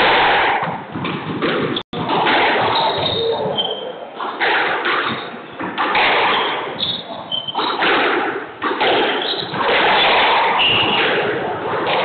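Squash rally: the ball is struck by rackets and thuds off the court walls again and again, with short squeaks of court shoes on the wooden floor.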